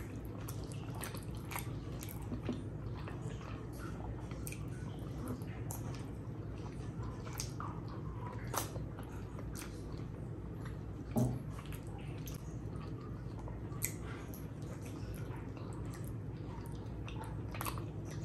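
Close-miked wet chewing and lip smacking of a person eating curry and rice by hand, with short squishy clicks and one louder smack about two-thirds of the way through, over a steady low background hum.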